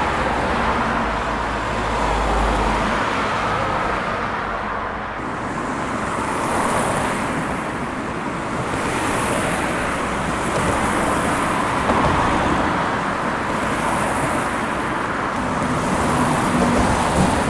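Light road traffic: a steady wash of cars driving past, swelling and easing as vehicles come and go, with a low engine rumble in the first few seconds.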